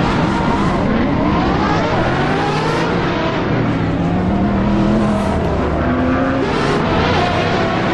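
Dubbed-in racing-car engine sound effect: engine notes revving up and down, several pitches layered over one another and rising and falling as if through gear changes.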